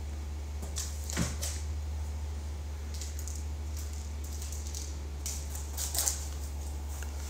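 Light scattered clicks and taps of a cat's paws and claws on a laminate floor as it bats at and pounces on a small object, over a steady low hum.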